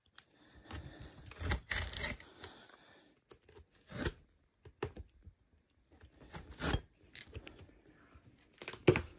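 Kitchen knife slitting the packing tape on a cardboard shipping box: tape and cardboard scraping and tearing in several irregular strokes.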